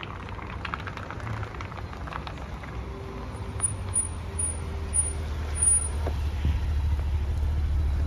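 Cadillac Escalade SUV pulling up and running close by, its engine a low steady rumble that grows louder over the last couple of seconds. A faint series of five short high beeps sounds midway.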